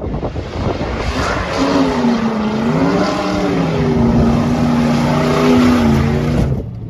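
Off-road rally car's engine running hard, its pitch dipping and rising with the revs over a loud rush of noise. The sound cuts off suddenly near the end.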